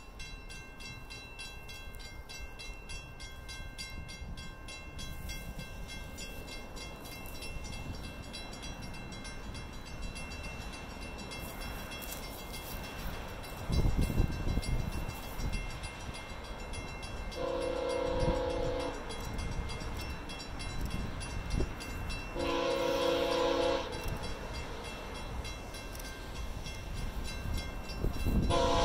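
Level-crossing warning bell ringing steadily as the gates come down for an approaching VIA Rail passenger train, whose locomotive horn sounds two long chords and starts a third at the very end: the standard crossing signal. A low rumble of the oncoming train rises about halfway through.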